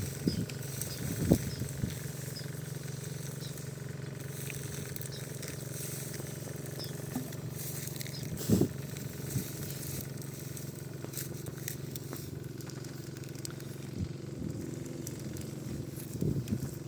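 A small engine running steadily at an even pitch, with a few short knocks, the loudest about a second in and again about halfway through.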